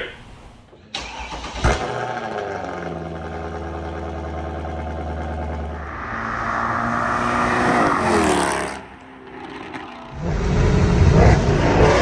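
Mercedes W204 C63 AMG's 6.2-litre M156 V8 with primary and secondary catalytic converters deleted and an X-pipe in place of the resonator. There is a sharp crack early on, then a steady engine note. The pitch climbs as the car accelerates and falls away after about 8 seconds. From about 10 seconds in it is louder and revving, echoing in a tunnel.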